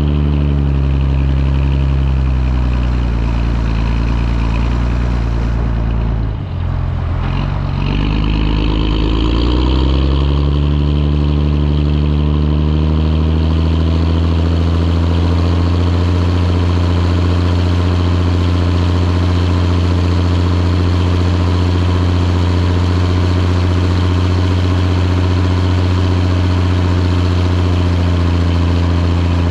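Fendt 512C tractor's diesel engine heard from on board. The revs sag over the first few seconds and dip briefly about six seconds in, then climb back up and hold steady at high revs for the rest.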